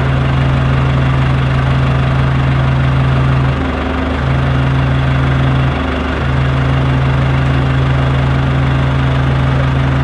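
Telehandler (telescopic forklift) engine idling steadily while the boom holds a steel rafter aloft. The main note dips briefly twice, about four and six seconds in.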